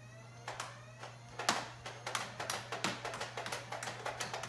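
A quick, irregular run of clicks and knocks, several a second, over a steady low hum.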